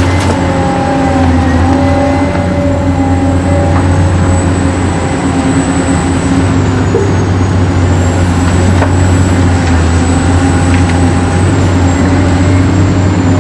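Steady engine-like drone with a high whine from a remote-control toy excavator and dump truck running, the whine dipping briefly about seven seconds in.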